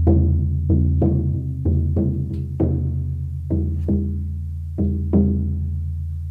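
Large oval horse-skin frame drum on an ash frame, struck with a firm beater: a run of deep strokes with a sustained low ring beneath them. The strokes grow sparser, the last two about five seconds in, and the ring then fades away.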